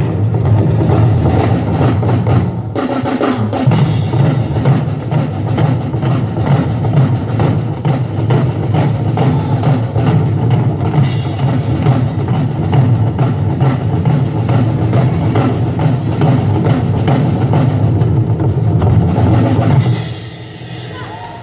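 Loud music with a drum kit keeping a steady beat over a heavy bass. It drops away suddenly near the end.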